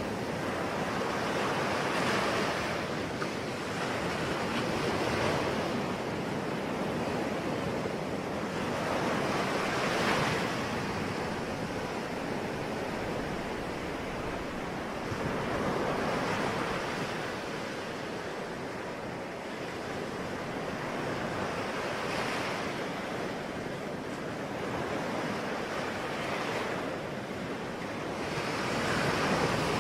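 Sea waves breaking: a rushing surf that swells and falls back every five or six seconds.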